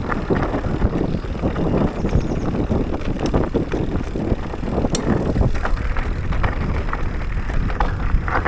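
YT Decoy MX e-mountain bike riding fast down a rough, rocky trail: a continuous clatter and rattle of tyres, frame and drivetrain over rocks and roots, with many sharp knocks, and wind rumbling on the microphone.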